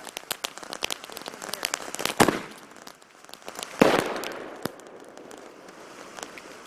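Fireworks going off: a rapid crackle of small pops, then two loud bangs a little under two seconds apart. The second bang fades out slowly.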